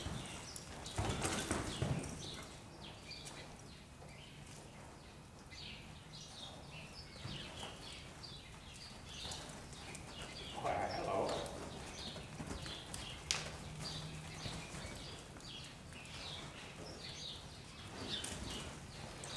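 Cutting horse's hooves scuffing and thudding in deep arena sand in quick, irregular steps as it stops and turns on cattle. A low steady hum runs underneath, and there is a short louder sound about eleven seconds in.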